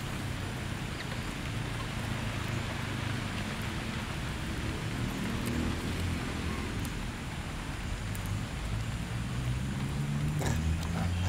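Steady outdoor hiss with a low rumble underneath, and a few faint clicks near the end.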